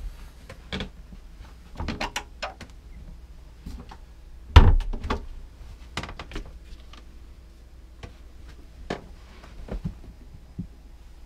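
Varnished wooden cabin doors and panels being opened and handled: scattered knocks and clicks, with one heavy thump about halfway through.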